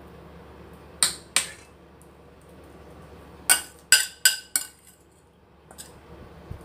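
Metal spoon clinking against china dishes: two clinks about a second in, then four more in quick succession a couple of seconds later, each ringing briefly.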